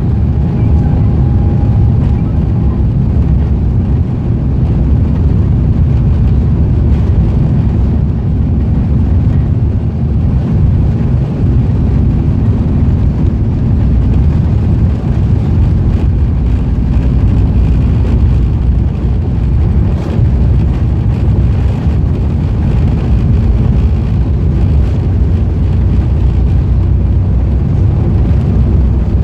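Airbus A350 jet engines, Rolls-Royce Trent XWBs, and airflow heard inside the cabin during takeoff: a loud, steady low rumble that holds evenly throughout.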